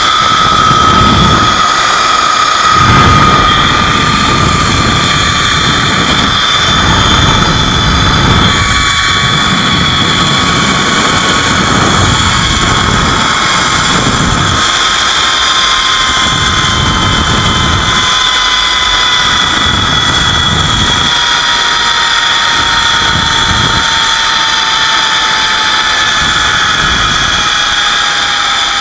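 Zip line trolley wheels running along the steel cable with a steady high whine that slowly falls in pitch, under wind rushing and buffeting over the camera microphone at speed.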